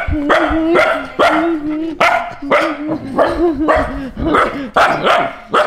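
Puppies barking repeatedly, about two sharp barks a second.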